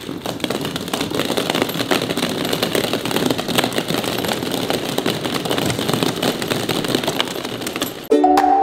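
Many hollow plastic ball-pit balls tumbling down carpeted stairs and skittering across a hardwood floor: a dense, continuous clatter of small knocks. It cuts off near the end as mallet-percussion music starts.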